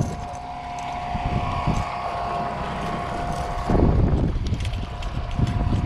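Wind buffeting the microphone, with a steady hum underneath that drops out briefly during a stronger gust about two-thirds of the way through.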